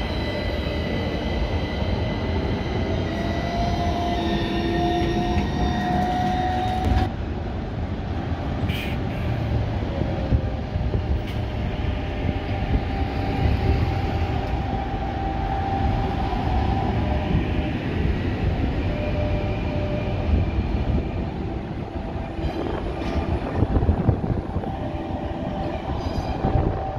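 Trams running on street track. First a modern low-floor AnsaldoBreda Sirio (M32) tram pulls away, its traction motors whining in a tone that rises as it speeds up. Then an older articulated tram approaches and rolls past with a steady rumble of wheels on rail, a held motor tone and a few sharp clacks near the end.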